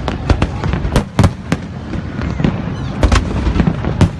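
Fireworks exploding: a rapid, irregular string of sharp bangs over a continuous low rumble, with the loudest cracks about a second in and near the end.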